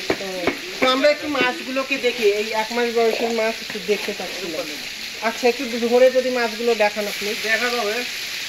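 Crackling, sizzling splash of water in a densely stocked, aerated biofloc fish tank, with fish stirring at the surface and water from a bucket. People talk over it, loudest in two stretches about a second and five seconds in.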